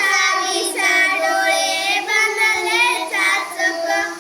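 A child's voice singing a line of a Marathi poem, repeating it back in a sung call-and-response recitation. The voice stops just before the end.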